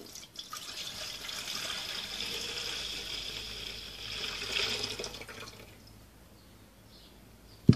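Milk poured in a steady stream from a ceramic jug into a large stainless-steel pot, splashing as it fills, stopping about five and a half seconds in. A single sharp thump near the end.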